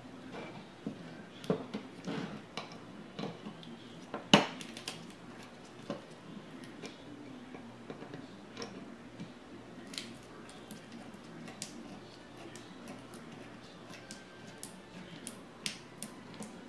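Small metallic clicks and clinks of a screwdriver and parts working against the steel receiver of an FN 49 rifle as a screw is turned out, with one sharper metal knock about four seconds in.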